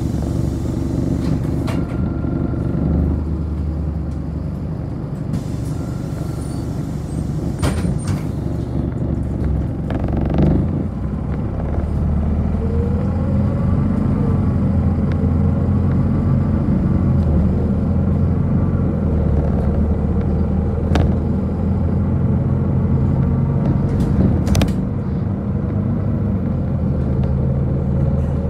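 City bus running, heard from inside the passenger cabin: a steady low engine hum with road noise, and a few short knocks and rattles.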